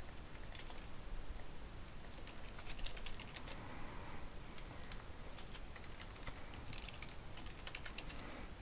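Quiet typing on a computer keyboard: irregular clusters of keystrokes as a line of code is typed.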